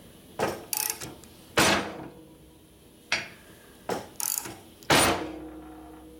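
Hand ratchet clicking in short rapid runs on its back strokes while tightening a large swing-arm pivot nut on a motorcycle frame. Two loud metal clanks, about a second and a half in and near the end, each ring on briefly.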